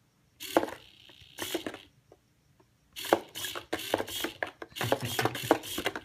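Small hobby servo motor buzzing in two short bursts as it swings the trap's claw arms down, followed by a quick run of rattling clicks from the servo and the cardboard arms.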